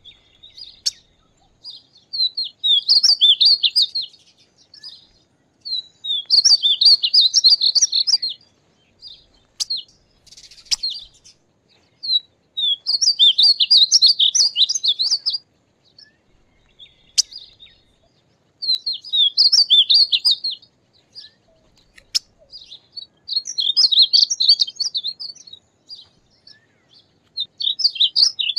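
Painted bunting singing: a high, rapid warbling song phrase of about two to three seconds, repeated six times with pauses and a few short notes between.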